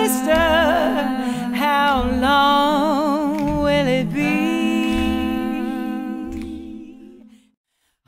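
A woman's voice sings a wordless, humming melody with vibrato over a steady held drone note and a soft low pulse. The song fades out about seven seconds in.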